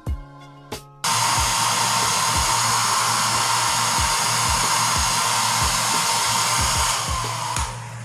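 Homsa HM-900B 900 W foldable hair dryer blowing steadily. It cuts in suddenly about a second in and dies away near the end. Background music with a steady beat runs underneath.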